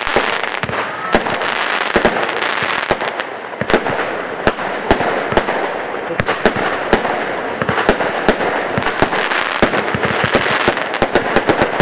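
Lesli 'Schwiegermutter' firework battery firing: sharp bangs in quick irregular succession, several a second, coming thickest near the end.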